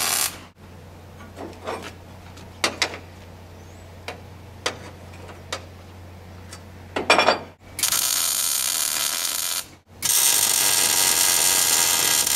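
Wire-feed welder arc running in short runs on steel patch plate, each run an even hiss. One run stops about half a second in, a short burst comes about seven seconds in, then two steady runs of about two seconds each follow. Between runs there are a few light clicks and taps over a faint steady hum.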